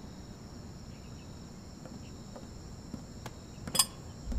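Night ambience of crickets chirring steadily and quietly, with a brief high ting about four seconds in.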